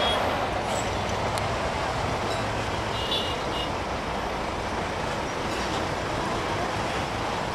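Steady engine and road rumble of a passenger bus pulling across a railway level crossing, with a brief high-pitched beeping about three seconds in.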